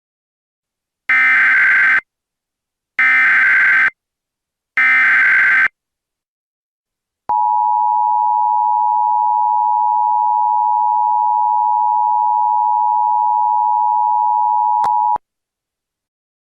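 Emergency Alert System tones: three one-second bursts of the digital SAME header, a buzzy modem-like warble, then about eight seconds of the steady two-tone EAS attention signal (853 and 960 Hz), which cuts off suddenly.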